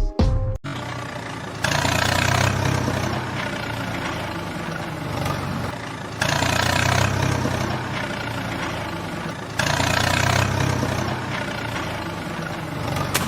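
Heavy truck engine idling, louder and rougher for about a second three times, a few seconds apart.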